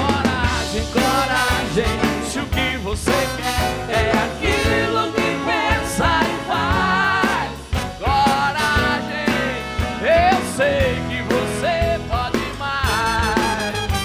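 Live band playing a rock song: drum kit, electric guitars, bass, keyboard and a trumpet-and-trombone horn section.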